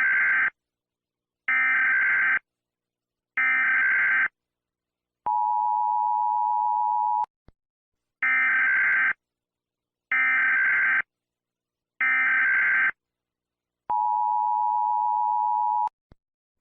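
Emergency Alert System SAME data header: three bursts of harsh, modem-like digital screech, each about a second long, with a second's pause between them, followed by a steady two-second alert tone. The whole sequence of three bursts and tone then repeats.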